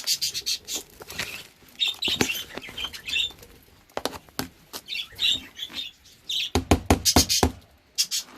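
Budgerigars chirping and chattering, with a quick run of sharp knocks about six and a half to seven and a half seconds in.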